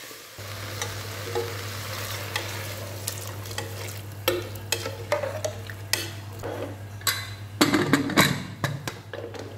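Metal ladle stirring chopped carrots, potatoes and onion in an aluminium pressure cooker, the vegetables sizzling in the pan, with scraping and clinks against the pot and a burst of louder knocks near the end.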